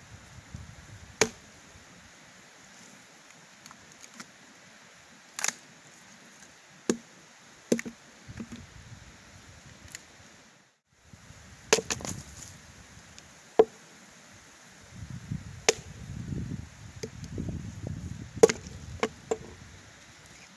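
Axe chopping into a locust log: about nine sharp blows at uneven intervals, with a short break near the middle.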